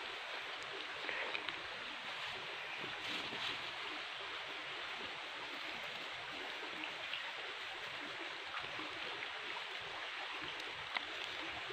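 Steady rushing background noise, with a few faint rustles and clicks as plants are handled.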